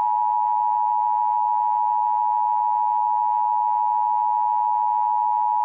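Emergency Alert System attention signal: two steady tones together near 1 kHz, held without a break, cutting in over the previous alert's voice message.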